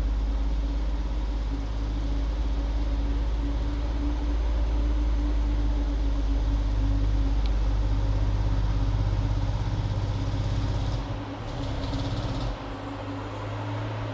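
Heavy diesel engine of a loaded off-highway logging truck, a steady low drone. The pitch pattern changes about 11 seconds in, and the engine is quieter after about 12 and a half seconds.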